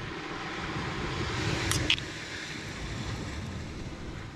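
Steady rushing of wind and surf at the beach, swelling slightly and then easing. A metal spoon serving the stew makes two short clicks a little under two seconds in.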